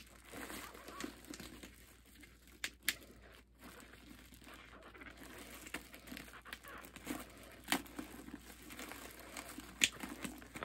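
Thin plastic bag crinkling and rustling as it is pulled and worked by hand out of a gourd's opening, with a few scattered sharp crackles.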